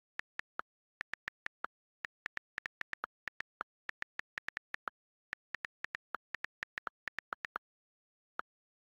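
iPhone on-screen keyboard key clicks as text is typed quickly: a fast, uneven run of short clicks, several a second, with a pause of about a second near the end. A few clicks are a little lower in pitch, the iOS space-bar click.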